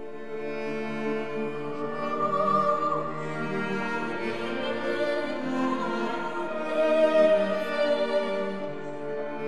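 Slow classical-style music of bowed strings with long held notes, swelling twice.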